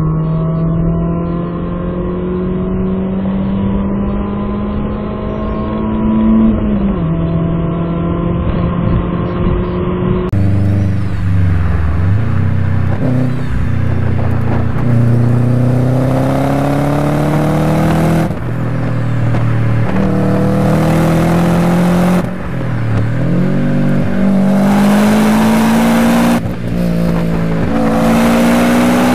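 BMW 318is four-cylinder engine pulling at speed, its pitch climbing slowly, with one upshift about seven seconds in. Then, about ten seconds in, another car heard from inside the cabin, accelerating hard: its engine revs up and drops back several times as it shifts through the gears.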